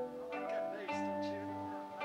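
Acoustic guitar and another plucked string instrument playing a bluegrass tune together, a quick run of picked notes.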